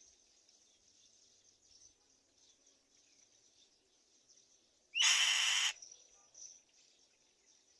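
Black-winged kite giving a single harsh screech about five seconds in, lasting under a second, over a faint, steady high-pitched chirring in the background.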